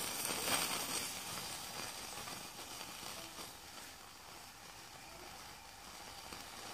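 Faint hiss of steam from a fired Mamod SE3 model steam engine, a little stronger in the first second and then sinking to a low steady hiss. The engine is still warming up and only barely turning on its own steam.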